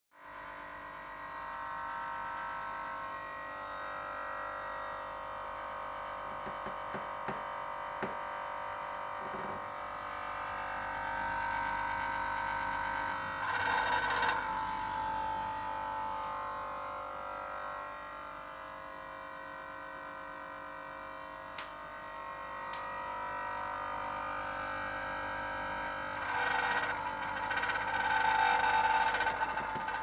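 Samsung SR210NME refrigerator running with its compressor on: a steady hum of several tones with a buzzing rattle, swelling louder about 13 seconds in and again from about 26 seconds. The rattle comes only while the compressor runs, and the compressor itself is sound.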